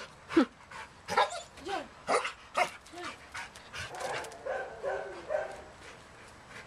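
Large black dog yelping and barking in short excited bursts, several a second over the first three seconds, then quieter, drawn-out whine-like sounds.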